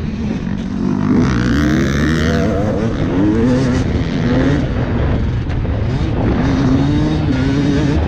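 Dirt bike engine revving up and down again and again as it is ridden hard over an off-road course, its pitch climbing and dropping every second or so.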